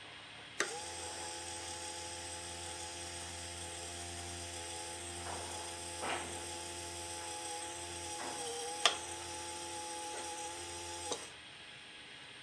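Model railway turntable's replacement electric motor and gearbox running: a quiet, steady whirring hum made of a few even tones, switched on with a click about half a second in and off with a click near the end, with a few light clicks along the way.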